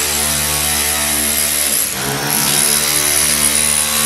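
Rotary hammer chiselling out the stone that a stained-glass panel is set in: a loud, steady hammering buzz that breaks off briefly about two seconds in, then starts again.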